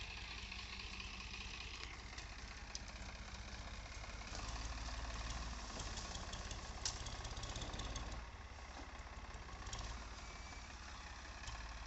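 Powertrac tractor's diesel engine running steadily with a low rumble, a little louder for a few seconds from about four seconds in.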